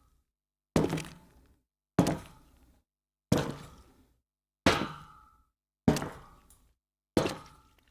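Slow footsteps: six single heavy steps at an even pace, about one every 1.3 seconds, each a sharp hard impact with a short ringing tail.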